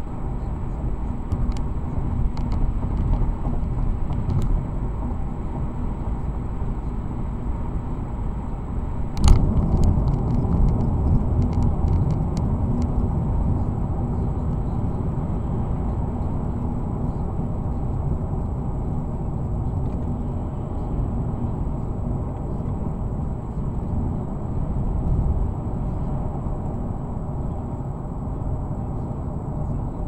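Steady low road and engine rumble inside a car cruising at highway speed, heard from the windshield. A sharp tick comes about nine seconds in, followed by a few seconds of scattered ticks; fainter ticks come earlier.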